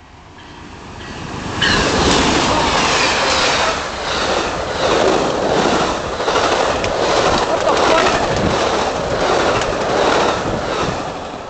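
Amtrak passenger train with bi-level Superliner cars passing close by at speed. It grows louder as it approaches, comes in sharply about two seconds in with the locomotive, then gives a steady clickety-clack of wheels over rail joints, about one and a half clacks a second, easing off near the end.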